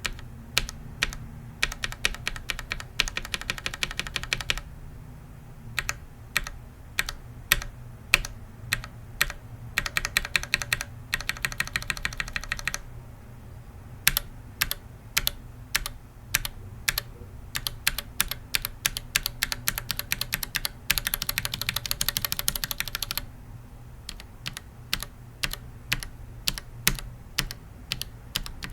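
Mechanical keyboard switches (Zealios, Retool MX Black, Tealios and Gateron Yellow, stock and lubed) clacking on an undampened Think 6.5 hotswap keyboard. Single keys are tapped one at a time, about twice a second, broken by three quick runs of rapid taps, the last run the loudest.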